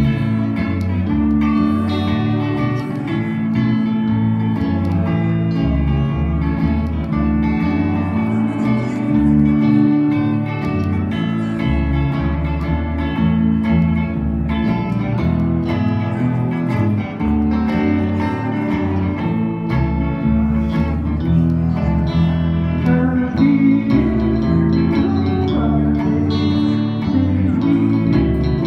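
Live band playing with electric guitars and a pedal steel guitar over a steady bass line.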